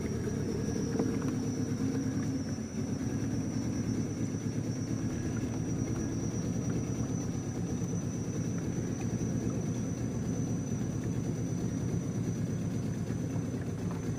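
Boat engine running steadily, a continuous low rumble, with a faint steady high-pitched tone above it.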